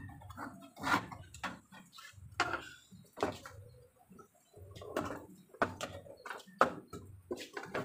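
Handling noise: about a dozen irregular clicks, taps and knocks, with dull low thuds between them, as small parts and wires are handled.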